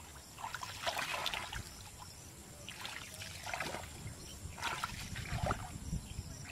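Feet wading through shallow, muddy ditch water: irregular sloshing and splashing, in a few separate bursts.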